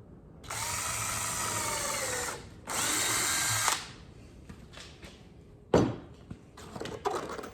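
DeWalt power drill driving screws into pine, in two runs: the first about two seconds long with the motor pitch sinking as the screw bites, the second about a second. A sharp knock follows a couple of seconds later, then some handling noise.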